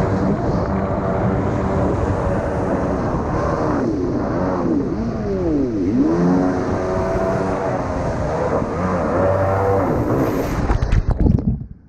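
Kawasaki 650 SX stand-up jet ski's two-stroke twin engine running under way, with water rushing past the hull; about halfway through its pitch dips and climbs back. Near the end, a flurry of splashing knocks, and the sound falls away sharply.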